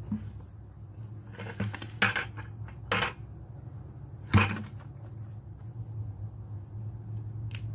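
White 5-gallon plastic buckets being handled and fitted into a stacked planter: a handful of hollow plastic knocks, the loudest about four and a half seconds in, over a steady low hum.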